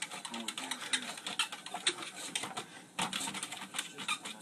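A bulldog walking on a running treadmill: irregular clicking and tapping of its claws and feet on the moving belt, along with the treadmill's mechanism.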